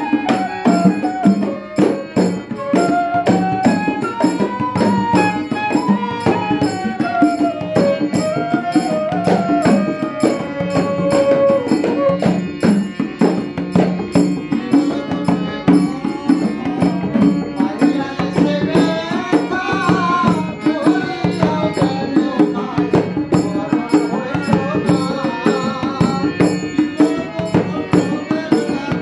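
Instrumental folk music: a bamboo flute plays a gliding melody over a rope-laced, two-headed barrel drum struck by hand in a quick, steady rhythm. The flute is clearest in the first half and again briefly later, while the drum beats continue throughout.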